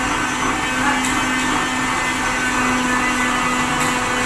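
A machine or engine running steadily with a constant hum, with two faint ticks about a second in and near the end.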